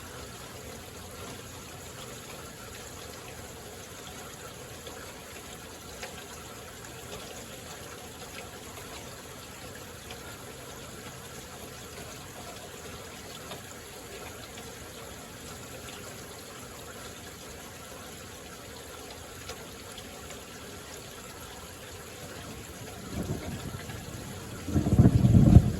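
Steady moderate rain falling, with running water. Near the end, thunder rolls in as a low rumble that builds and is loudest just before the end.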